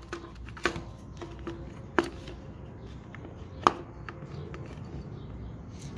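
Handling noise from a dirt bike's plastic airbox and rubber intake boot being worked back into place on the carburetor. There are a few sharp plastic clicks and knocks, the loudest about three and a half seconds in.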